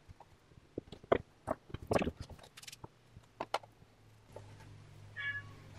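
Scattered light knocks and clicks of plywood cabinet panels being handled and fitted together. A low steady hum comes in about four seconds in, and near the end a cat gives one short meow.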